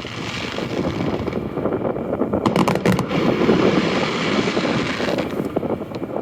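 Fireworks going off: a dense, continuous crackle and rumble, with a quick cluster of sharp bangs about two and a half seconds in, and wind buffeting the microphone.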